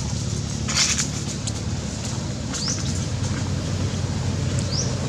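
Outdoor ambience: a bird's short, rising high call repeats about every two seconds over a steady low hum, with a brief rustle about a second in.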